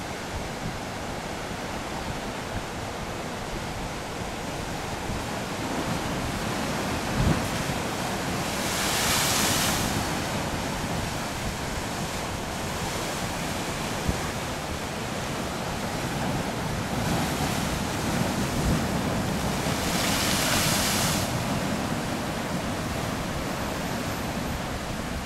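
Pacific surf breaking and washing over lava rock and a sandy beach: a steady rushing wash, with two louder waves crashing, about a third of the way in and again near the three-quarter mark. Wind buffets the microphone underneath.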